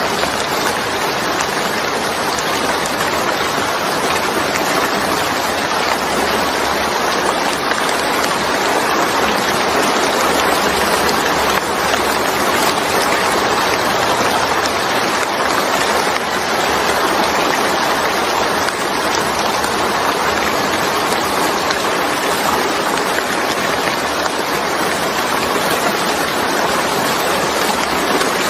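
Steady rain falling, a dense, even hiss with no letup.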